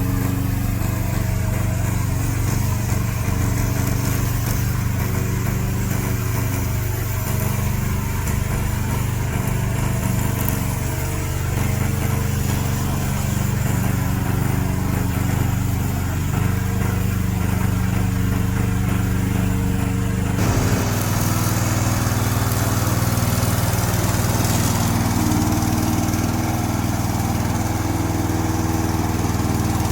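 Engine of a tracked remote-control lawn mower running steadily, with an abrupt change in its tone about two-thirds of the way through.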